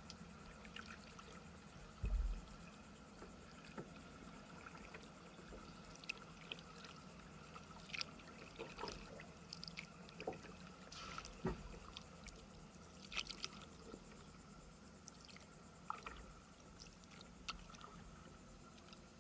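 Small irregular splashes and trickling water around a slowly moving kayak, with a low thump about two seconds in.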